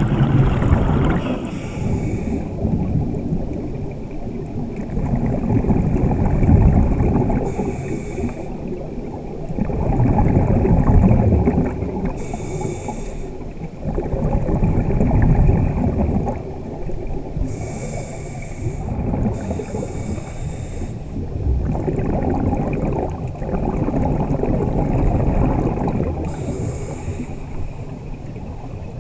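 Scuba diver breathing through a regulator underwater: short high hissing inhalations alternate with low, bubbling exhalation rumbles, a breath every four to five seconds.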